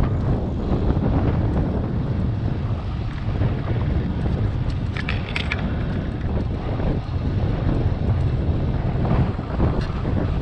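Wind buffeting the microphone of a camera on a moving bicycle: a steady, loud low rumble of wind noise, with a few brief clicks about five seconds in.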